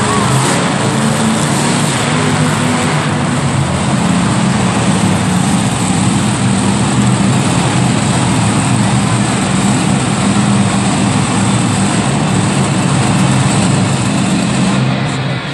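Monster truck engines (supercharged V8s) running loud and steady as the trucks drive across the arena dirt.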